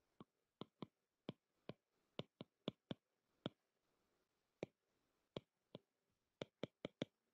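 Stylus tip tapping on a tablet's glass screen during handwriting: a string of short, sharp clicks at an irregular pace, about two or three a second, over near-silent room tone.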